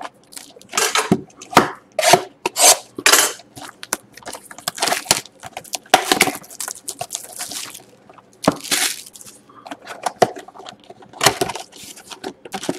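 Clear plastic shrink wrap being peeled and crinkled off a cardboard trading-card box, and the box handled and its cardboard lid pulled open: an irregular run of sharp crackling rustles and scrapes.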